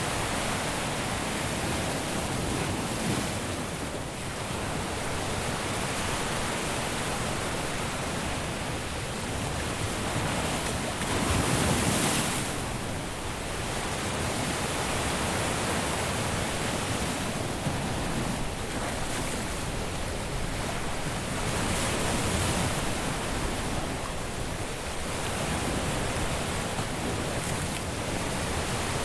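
Caribbean surf washing onto a beach in a steady hiss of breaking waves, swelling louder as a larger wave breaks about twelve seconds in and again near twenty-two seconds.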